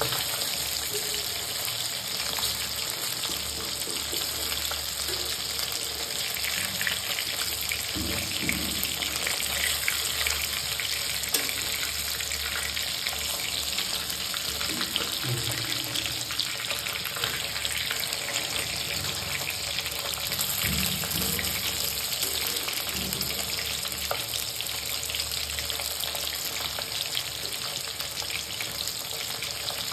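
Marinated rohu fish pieces, coated in gram flour and rice flour, frying in hot oil in a kadhai: a steady sizzle with dense crackling.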